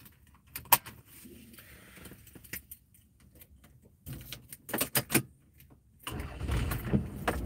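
Clicks and small metallic rattles from handling things inside a car's cabin: one sharp click about a second in and a cluster of jingling rattles around four to five seconds. A low rumble rises from about six seconds.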